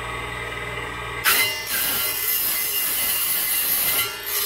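Mini benchtop table saw running, then its circular blade cutting through a small metal tube from about a second in: a loud cutting noise over the motor's steady whine, easing briefly near the end before the blade bites again.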